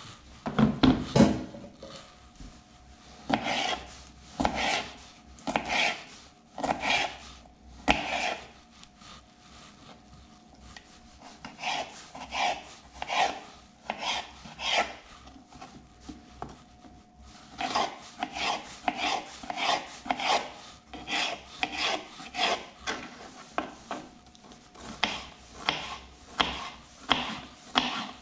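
A knife cutting pickled cucumbers on a plastic cutting board: separate rasping strokes, about one a second at first and faster in the second half. There is a heavier knock about a second in as the board is set down on the steel counter.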